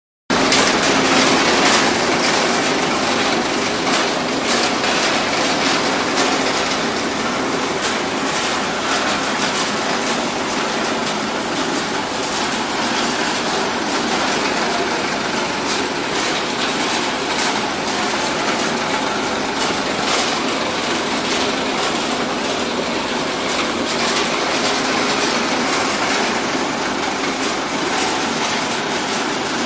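Betel nut (areca nut) cutting plant running: belt-driven cutting machines and vibrating grading screens make a loud, steady, dense rattle, dotted with frequent sharp clicks.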